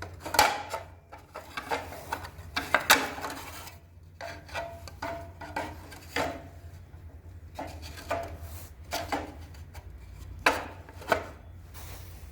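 Irregular clicks, taps and short scrapes of hard small parts being handled or worked by hand, in uneven clusters, over a low steady hum.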